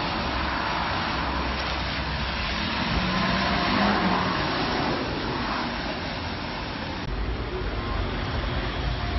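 City street traffic with a trolleybus driving past close by, loudest about three to four seconds in. The street sound changes abruptly about seven seconds in.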